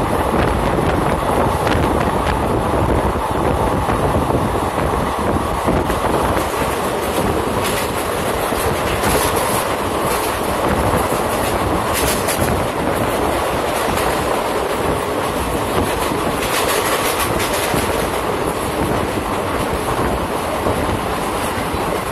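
Passenger train running at speed, heard from a carriage: a steady rumble and rush of wheels on rail, with runs of clicking as the wheels pass over rail joints.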